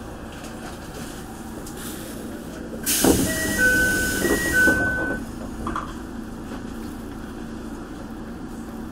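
Toei 5300 series commuter train standing at a platform. About three seconds in, a burst of compressed-air hiss with a thump, typical of the pneumatic doors closing. Over it, a two-note chime sounds twice, high then low.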